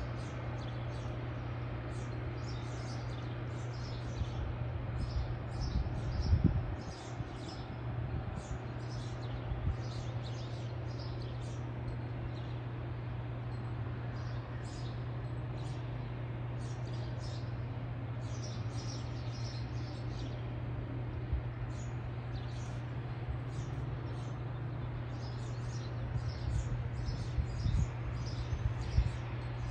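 Small birds chirping over and over, with a steady low rumble from a long freight train rolling past in the distance. The low sound surges louder briefly about six seconds in and again near the end.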